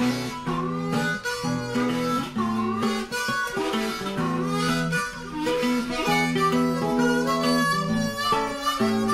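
Acoustic blues music: harmonica playing over acoustic guitar.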